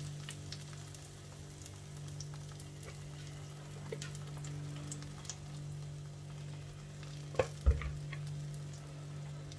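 Pancake batter sizzling gently in an oiled frying pan, with faint crackles over a steady low hum. Two sharp knocks come about seven and a half seconds in.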